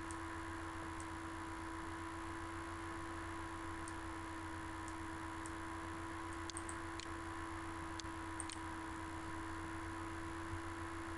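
Steady electrical hum and hiss from the recording setup, with faint computer mouse clicks scattered irregularly, about a dozen in all.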